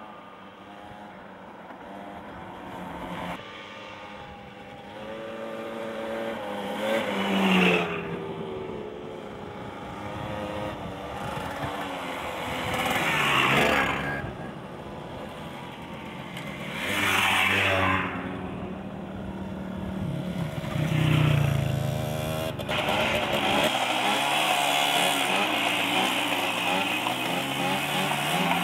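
Small moped and motorcycle engines riding past on a dirt track one after another, each growing louder as it approaches and fading as it goes by, in four distinct passes. About three-quarters of the way through, a steadier, closer engine sound takes over.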